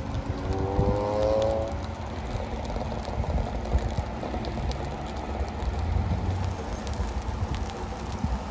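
Highway traffic passing below, a steady low rumble of tyres and engines, with one vehicle's engine rising in pitch as it accelerates about a second in.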